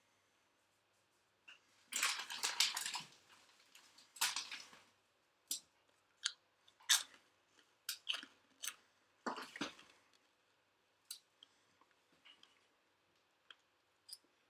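A person eating a crunchy snack close to the microphone: a dense spell of crackling crunches a couple of seconds in, then a run of separate sharp crunches that thin out toward the end.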